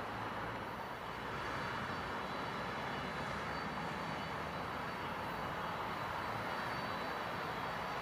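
Jet engines of a Boeing 767-300ER freighter taxiing at low thrust: a steady rush with a faint, even high whine.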